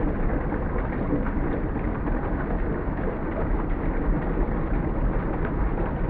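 Water pouring out of a round culvert pipe and splashing into the pool below, a steady even splashing.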